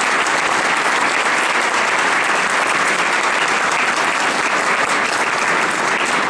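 An audience applauding: many people clapping steadily and densely after a lecture.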